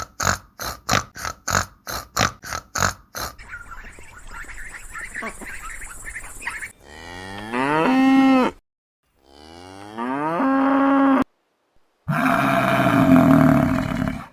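Cow mooing: three long moos in the second half, the first two rising in pitch and then held, the last louder and rougher. The first three seconds hold a quick run of short repeated pulses, about three or four a second.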